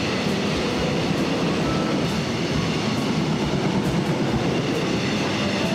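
A long freight train of cement tank wagons passing close by at speed: a steady rumble of wheels on rail, with regular wheel clacks about once a second.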